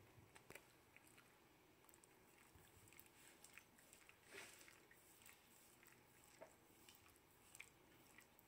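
Faint, wet licking and small lip-smacking clicks from a Shetland sheepdog licking a person's mouth, in short irregular bursts with a slightly longer smack about four and a half seconds in.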